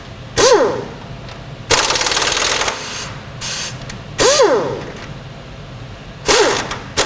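Air impact wrench driven in short bursts on a seized nut that has not yet broken free. With each trigger pull the motor whines up and falls away again, and about two seconds in one longer burst of rapid hammering runs for about a second.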